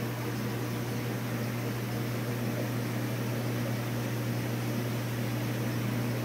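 Steady electric hum with an even hiss from the reef aquarium's running equipment, such as the circulation and return pumps, unchanging throughout.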